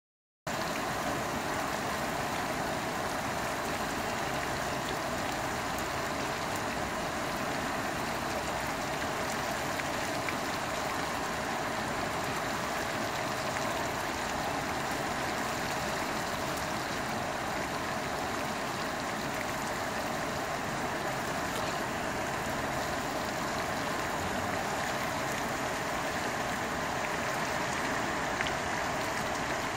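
Steady rain falling onto standing water, the drops splashing on its surface in an even, unbroken hiss.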